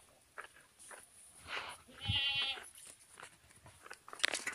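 A goat bleats once, about two seconds in: a single wavering call about half a second long, with short clicks and scuffs around it and a few sharper clicks near the end.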